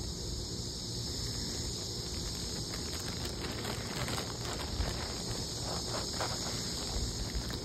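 Steady high-pitched insect chorus, with a run of small water splashes and patters near the middle.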